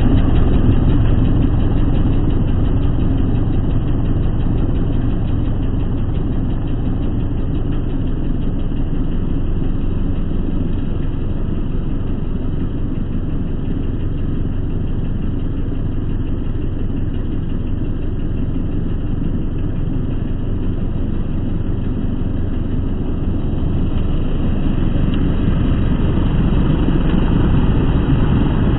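Walk-behind lawnmower's small engine running steadily, spinning a new blade on a crankshaft bent from hitting a post. The owner still finds a slight vibration with it running.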